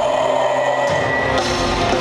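Live rock band playing through a club PA, recorded from the audience. Early on the bass and drums drop away, leaving guitars and a held high note, then the full band comes back in about a second in.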